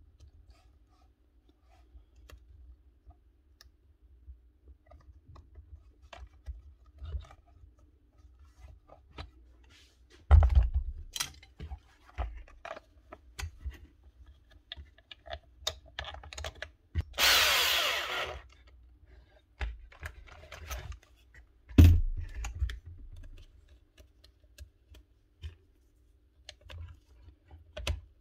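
Hands working on a gas nail gun on the bench: scattered small clicks and knocks of parts and tools, two heavy thumps about a third and three quarters of the way through, and a loud burst of hissing or whirring lasting about a second just past the middle.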